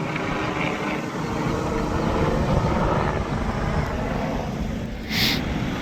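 Helicopter flying overhead, a steady rotor and engine noise with a rapid low flutter. A brief hiss cuts in about five seconds in.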